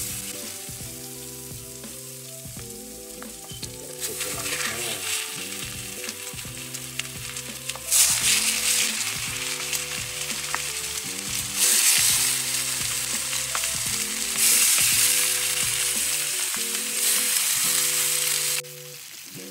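Marinated chicken thighs and drumsticks sizzling in hot olive oil in a ceramic frying pan, the sizzle swelling louder each time another piece is laid in, about every three to four seconds. The sizzle cuts off suddenly near the end.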